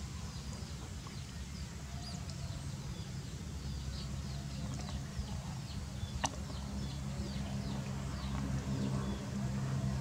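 Small birds chirping: many short, high chirps scattered throughout, over a low steady hum that grows a little louder near the end. A single sharp click comes about six seconds in.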